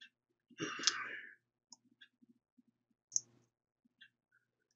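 Computer mouse clicks: a handful of scattered single clicks, the loudest about three seconds in, with a short rustle near the start.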